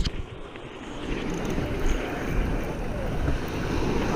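Wind buffeting the microphone over the sound of the surf: a steady rumbling hiss with no distinct events.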